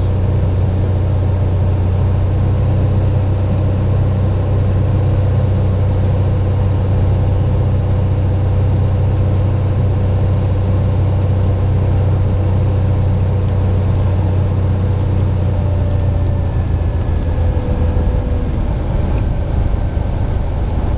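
Cessna 182R's six-cylinder Continental O-470 engine and propeller droning steadily, heard from inside the cabin while descending on approach to land. The steady low drone turns uneven in the last few seconds.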